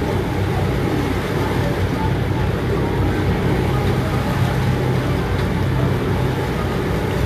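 Boat engine running steadily, a constant low hum with water and wind noise over it.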